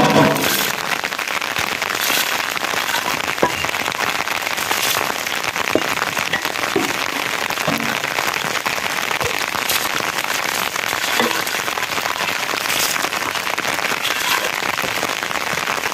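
Steady rain falling, mixed with water being poured from a mug into metal pots. A few sharp knocks stand out, the clearest about three and a half and six seconds in.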